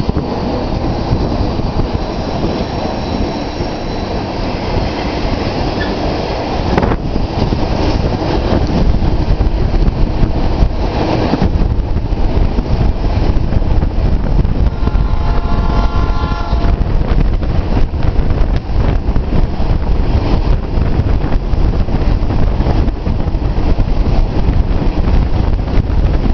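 Vale passenger train running along the track, heard from beside a coach: steady wheel-on-rail rumble and clatter, growing louder from about seven seconds in as the departing train gathers speed. Its horn sounds briefly about halfway through.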